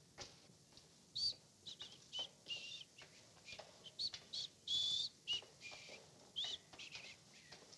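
Footsteps of two people walking on a paved street, heard as faint, regular clicks. Over them comes a scattered run of short, high-pitched chirps, some gliding up or down, which are the loudest sounds and fall between about one and seven seconds in.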